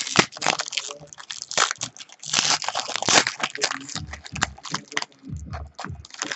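Wrapper of a trading-card pack crinkling and tearing as it is opened, with dense irregular crackles and rustling as the cards are handled.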